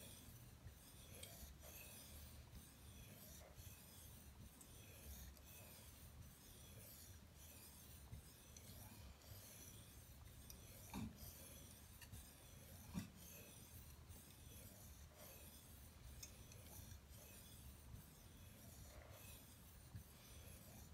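ESEE 3 knife blade being stroked back and forth on a wet Suehiro Debado waterstone, a faint, steady scraping at about one stroke a second as the edge is polished. Two soft knocks, about two seconds apart, come around the middle.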